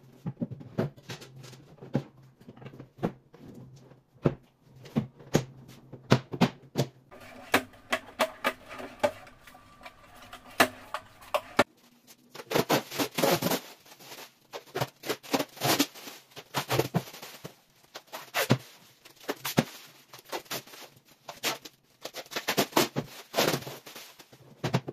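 Sharp clicks and knocks of a flat-pack IKEA Bestå Burs TV bench being finished, as its drawer and doors are fitted. About halfway through comes a long run of loud crackling as the blue protective plastic film is peeled off the high-gloss fronts.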